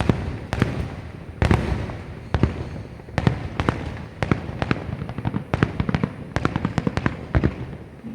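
Aerial fireworks going off in quick succession: a rapid, irregular run of sharp bangs over a deep rumble, with a few bigger booms standing out.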